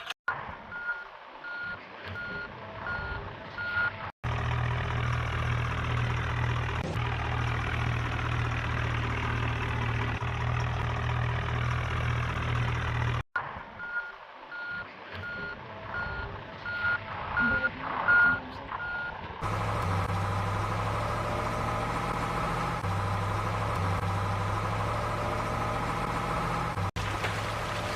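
Reversing beeps, about two a second, alternating after abrupt cuts with a steady low engine hum from toy construction vehicles' sound effects.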